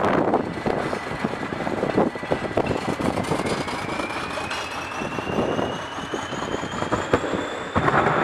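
Commuter train running on the rails: a dense rumble and clatter with many short clicks, and a thin whine that slowly rises in pitch.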